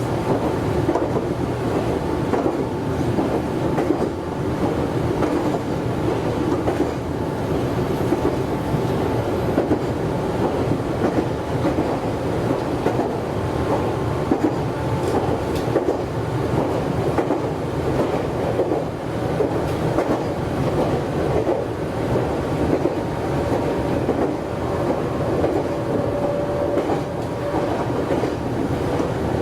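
Meitetsu 100 series electric multiple unit running along the line between stations, a steady rumble of wheels on rail with some clickety-clack of rail joints, heard from the front of the train.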